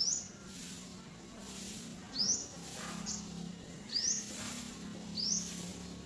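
A bird calling: four short, high, rising chirps spaced a second or two apart, over a faint steady low hum.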